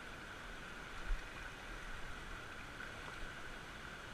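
Steady hiss of flowing river water, with a few soft low bumps of wind on the microphone.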